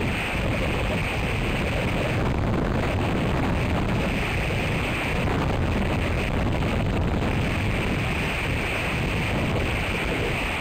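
Strong storm wind ahead of a hurricane, rushing and buffeting the nest camera's microphone as a steady loud noise that swells and eases in gusts every few seconds.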